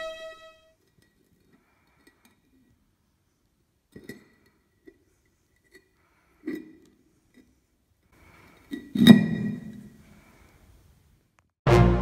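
A flat stone slab being handled and laid over a small stone cavity: a few light clicks and knocks, then one hard stone-on-stone knock about nine seconds in with a brief ring. Music fades out at the start and comes back in near the end.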